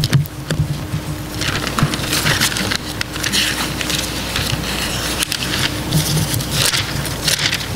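Bible pages being leafed through at a pulpit close to the microphone: an irregular run of paper rustles and flicks, with a faint steady hum underneath.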